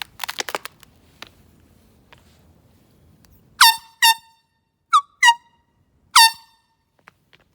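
An air horn sounding five short, high-pitched blasts: two in quick succession, then another two, then a single one.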